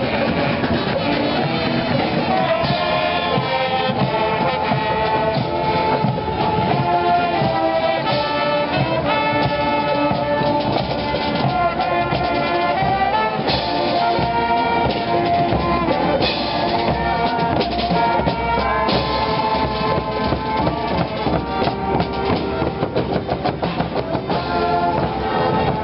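Street brass band playing: horns sounding held, pitched notes over a steady drum beat.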